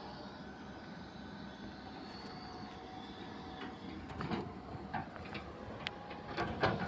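Tata Hitachi EX 210 LC Super Plus excavator's diesel engine running steadily, with several sharp clanks and knocks in the last three seconds.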